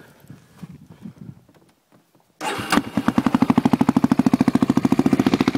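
An engine starts about two and a half seconds in and settles straight into a fast, even, rapidly pulsing idle.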